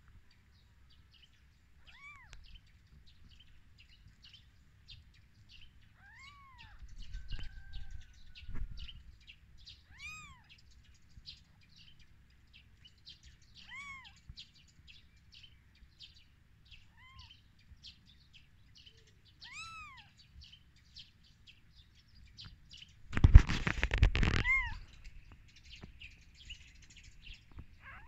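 Newborn kittens mewing: short, thin cries that rise and fall, one every few seconds. Quick high chirps run underneath. A loud rush of noise comes near the end.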